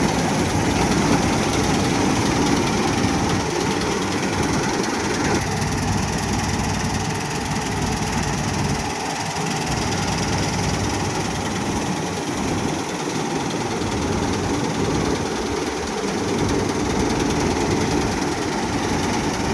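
Combine harvester's diesel engine and machinery running steadily under load while harvesting wheat.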